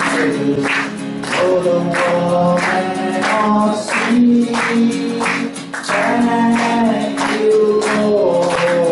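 A man singing a slow worship song to his own acoustic guitar, strummed in a steady rhythm.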